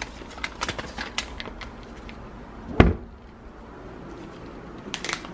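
Rummaging in a kitchen cupboard: packets rustling and items clicking on the shelf, then one loud thump about halfway through as the cupboard door shuts. A little packet rustling comes back near the end.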